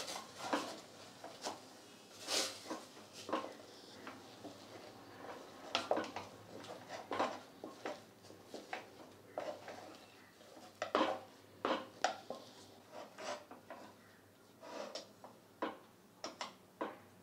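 A stirring spoon scraping and knocking against a stainless-steel saucepan as a thick, crumbly mix of pearl millet (bajra) flour and hot water is stirred together. The strokes are uneven, about two a second.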